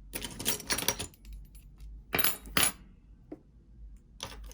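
Small metal costume jewelry pieces clinking and jangling together as they are handled and set down, in three short clusters: about the first second, again two seconds in, and briefly near the end.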